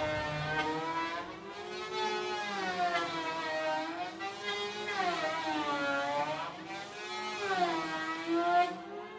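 Electric hand planer running, its motor whine sinking in pitch and recovering every two to three seconds, as the cutter takes load on each pass.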